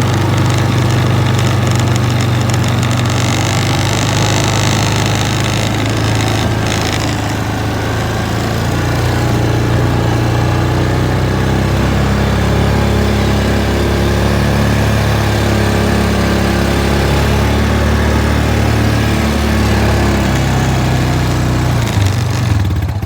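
1999 Honda Foreman 400 ATV's single-cylinder four-stroke engine running steadily as the quad is ridden, its pitch rising and falling a little with the throttle.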